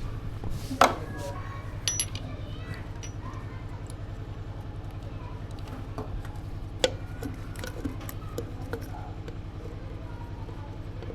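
Scattered metallic clinks and knocks of hands and tools working a hose loose from the back of a motorcycle engine's cylinder head, the sharpest knock about a second in. A steady low hum runs underneath.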